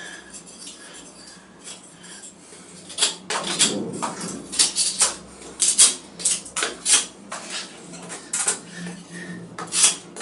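Folding knife blade shaving and carving a wooden block by hand: a run of short, sharp cutting strokes, one or two a second, from about three seconds in, with lighter scraping before that.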